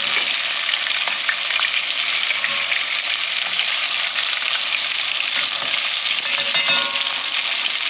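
Coated chicken pieces deep-frying in hot oil in a pot: a loud, steady sizzle, with a slotted spoon moving among the pieces.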